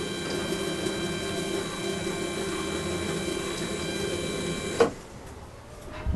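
Automatic chicken-coop door controller's small geared motor running with a steady whine as it winds the cord to lift the coop door, then stopping with a click about five seconds in.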